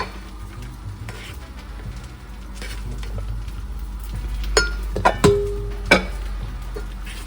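A spoon stirring khichuri in a rice-cooker pot, with three sharp metal knocks near the end, over background music.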